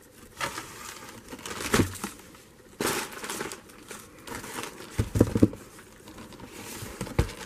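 Crinkling and rustling of packaging and produce bags as a hand rummages in a cardboard box of fruit and vegetables. There are a few dull knocks, a cluster of them about five seconds in and one near the end.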